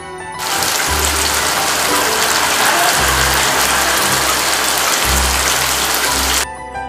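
Vegetable gravy sizzling in a frying pan (kadai): a loud steady hiss that starts about half a second in and cuts off abruptly just before the end, with the bass of background music underneath.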